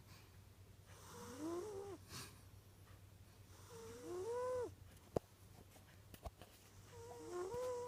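Cat snoring in its sleep: three snores about three seconds apart, each a short pitched tone that rises and then falls, with a faint hiss of breath.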